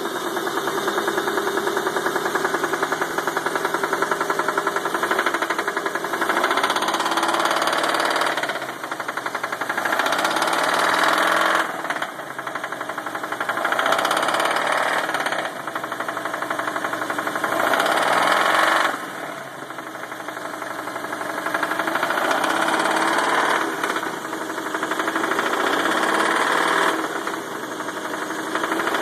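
1995 Nissan Pathfinder's VG30E V6 engine running with a rapid, steady knock, the engine speed rising and falling several times. The owner wonders whether the knock is rod knock, a bearing or a faulty knock sensor.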